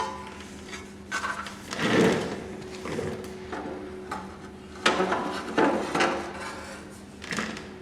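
Knocks, clatter and rubbing as an aluminium skid plate and its fittings are handled and positioned under a motorcycle, the loudest knocks about two seconds and five to six seconds in, with a steady low hum behind.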